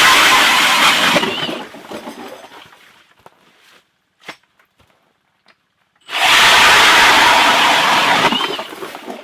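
Powered ice auger drilling through lake ice: it runs loudly and winds down in the first few seconds, then starts again abruptly about six seconds in, drills for about two seconds and winds down again.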